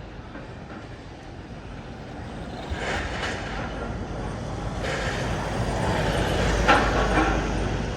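Low rumble of a heavy vehicle or machine, growing louder, with a few sharp metallic clanks.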